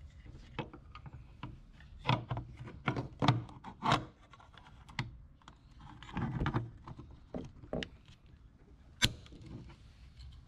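Small plastic key stash box handled: a series of clicks and knocks as its lid is shut and latched and the box is turned over to show its magnets, with one sharp click about nine seconds in.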